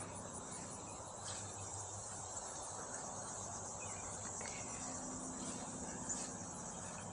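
Faint, steady, high-pitched insect chorus, with a few faint clicks about a second in and again about six seconds in.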